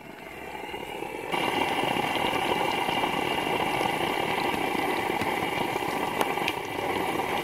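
Breaded lake trout fillets sizzling and crackling in hot oil in a frying pan, with scattered small pops; the sizzle becomes much louder about a second in and then holds steady.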